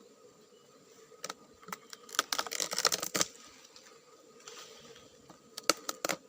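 Crackling, snapping and scraping of dry, fibrous tree-fern trunk being broken open by hand to reach a honey bee nest inside. There is a dense burst of clicks and crackles about two seconds in, a softer rustle later, and a few sharp snaps near the end.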